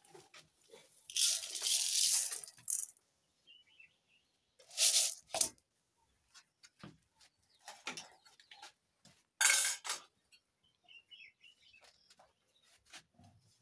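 Dry grain poured into an aluminium basin: one longer pour lasting a second or two, then two shorter pours, with light knocks and clicks of the metal basin in between.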